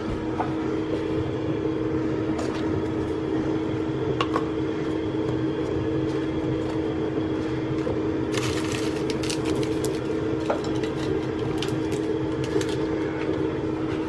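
A steady machine hum with a constant tone. From about eight seconds in come a few seconds of light clicking and crinkling as a lidded paper cup and paper sugar packets are handled.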